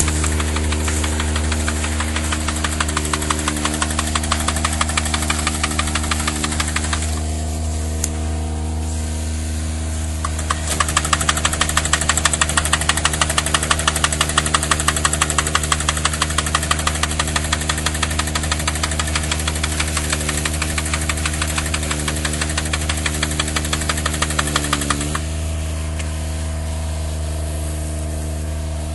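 Ebeaver forestry machine's engine running steadily while it clears brush with its crane-mounted cutting head, with a fast, even rattle over the engine. The rattle drops out about seven seconds in and returns louder about eleven seconds in. It stops near twenty-five seconds, where the engine briefly sags in pitch.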